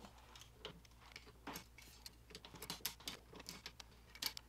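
Faint, irregular small clicks and taps of a metal pressure washer hose fitting and pliers being handled.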